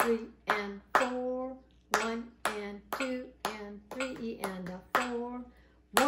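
Hand clapping the rhythm of a music reading exercise, uneven but mostly about two claps a second, with a voiced syllable sounded on each clap to mark the notes.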